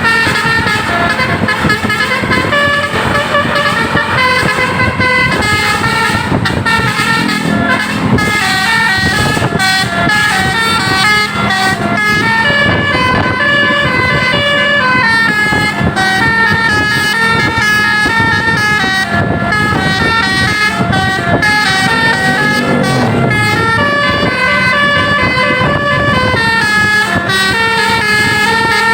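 Indonesian bus's basuri telolet horns playing a continuous multi-note melody, the notes stepping up and down, over a steady low hum. The pitch slides downward twice, about 7 seconds in and again near the 22-second mark.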